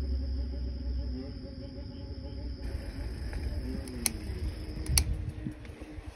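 Insects buzzing steadily in high grass, with a low rumble of wind on the microphone and two sharp clicks about four and five seconds in.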